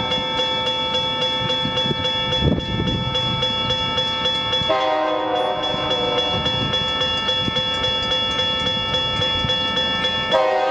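Diesel freight locomotive's air horn blowing for a grade crossing, with a fuller chord that cuts in about halfway and again near the end. Under it the crossing-signal bell rings rapidly and steadily.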